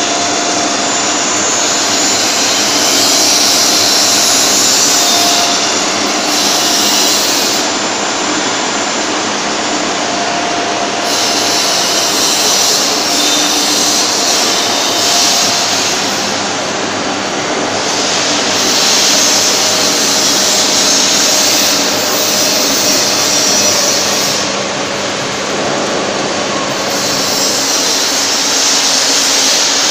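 Wedge wire (Johnson) screen welding machine running: a loud, steady mechanical din with a high hiss that swells and drops back every few seconds.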